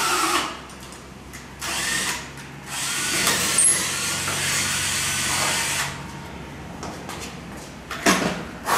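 Cordless drill boring a hole through a pipe wheel axle and its collar for a split pin. The drill runs in three bursts, the longest about three seconds, and its motor pitch shifts as it works. Near the end there are two sharp knocks.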